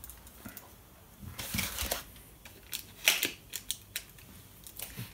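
A cardboard mailer box being handled and a small hand cutting tool being readied to open it: a series of sharp clicks and short rustles, loudest about three seconds in.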